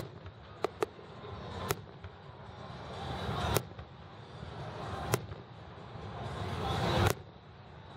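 Aerial fireworks shells bursting in a display: six sharp bangs, two in quick succession near the start, then single bangs every couple of seconds.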